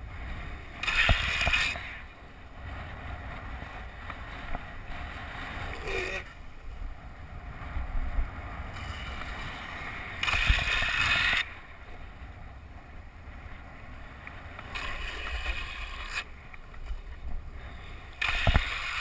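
Longboard's urethane wheels rolling on asphalt with a steady rumble and wind on the microphone. Several times the wheels slide sideways in hissing scrapes of about a second each.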